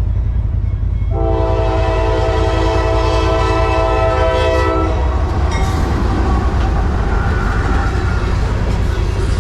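A multi-note train horn sounds one long blast of about four seconds, starting about a second in, over a steady low rumble; after it stops, a rougher rushing noise carries on.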